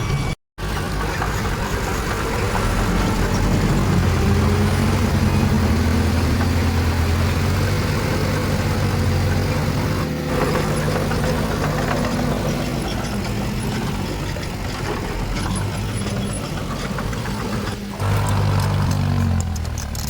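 Diesel engine of heavy earthmoving machinery running steadily, a low drone whose engine tone rises slightly a few seconds in. The sound cuts out completely for a moment just after the start and changes again near the end.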